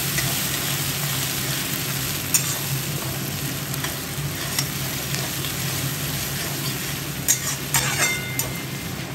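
Sliced onions sizzling as they fry in hot oil in a kadai, stirred with a steel spatula. The spatula scrapes and knocks against the pan now and then, with a few sharp knocks close together about seven to eight seconds in.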